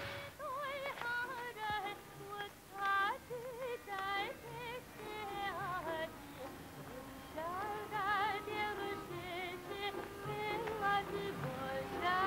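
Background music: a high melody that wavers and trills in quick ornaments over a low accompaniment.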